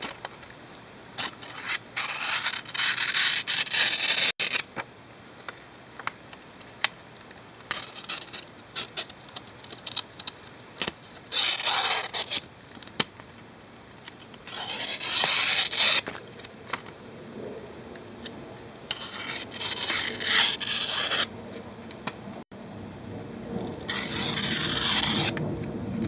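Blade of a Victorinox 0.8463.M3 One-Hand multitool slicing through a hand-held slip of paper, about six separate scraping strokes of a second or two each, with small paper crackles between them. The unsharpened factory edge cuts the paper just by being pushed forward, without a sawing motion.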